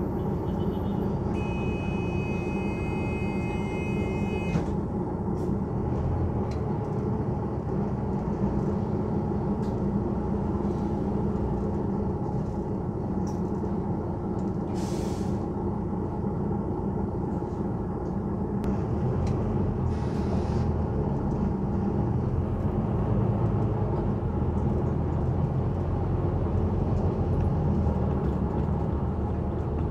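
Cabin noise of a Volvo B9TL double-decker bus under way: the diesel engine and road noise run steadily and grow somewhat louder over the last several seconds. A steady electronic tone sounds for about three seconds near the start, and a short hiss of air comes about halfway through.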